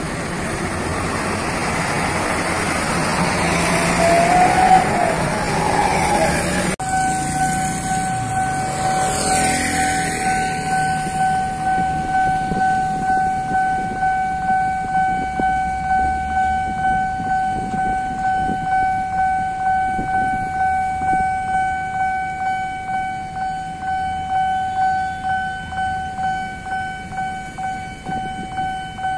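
Road traffic passing close over a railway level crossing, loudest about five seconds in. After an abrupt change, the crossing's warning bell sounds a steady ringing tone that pulses evenly about one and a half times a second, signalling that a train is coming.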